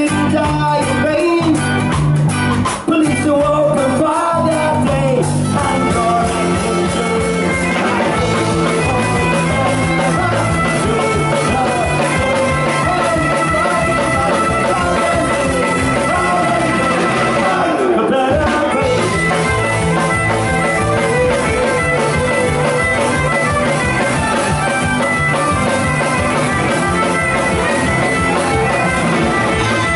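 Folk-punk band playing live and loud: bowed fiddle, acoustic and electric guitars, bass and drum kit.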